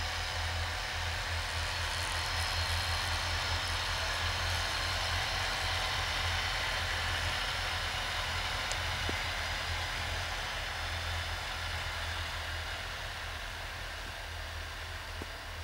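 Snowmobile engine running as the machine drives past, a steady drone that slowly fades toward the end.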